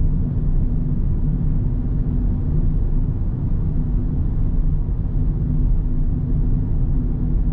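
A car driving: a steady low rumble of road and engine noise with a faint steady hum.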